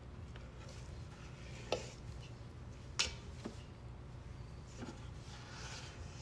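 A spatula scraping cookie dough around a stainless-steel stand-mixer bowl, with four sharp clinks against the metal, the loudest about three seconds in.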